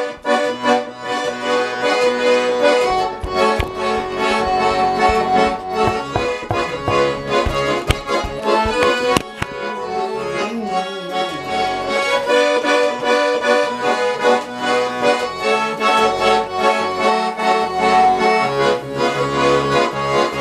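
Instrumental music: the song's closing instrumental passage without vocals, a melody over a steady rhythmic backing.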